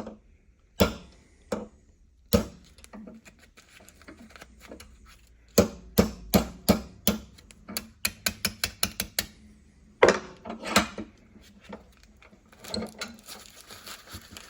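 Small hammer striking the split pin of a Craftsman swivel socket held in a vise, driving the pin out: three spaced blows, then a quick run of about a dozen lighter taps, then two more blows, with some handling noise near the end.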